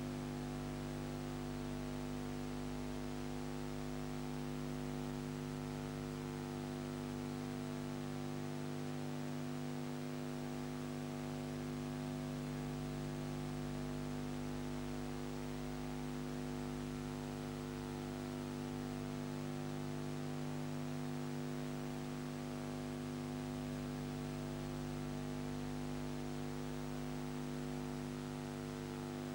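Steady electrical hum, several even tones stacked one above another, over a constant hiss: no sound from the scene itself.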